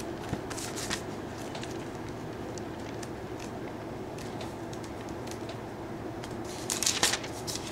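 Pages of a Bible being leafed through, with soft paper rustles and handling noise over a steady room hum. There is a louder burst of rustling about seven seconds in.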